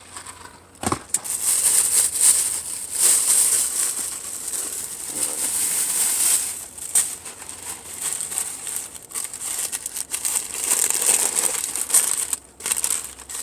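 Food packaging being handled and unwrapped: continuous, uneven crinkling and rustling of paper or plastic wrapping, with many sharp crackles.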